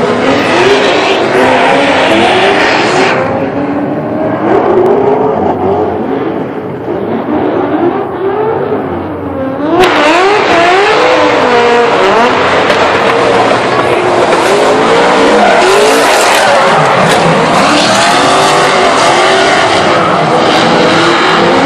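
Drift cars' engines revving hard, their pitch rising and falling again and again, over the hiss and squeal of tyres sliding sideways through a corner. The sound changes abruptly about ten seconds in.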